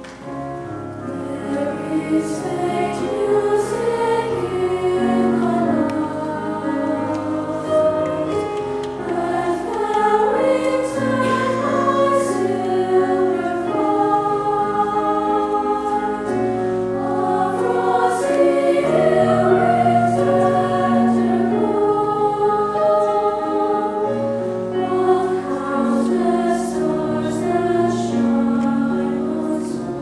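Children's choir singing a piece in several parts, with long held notes in close harmony.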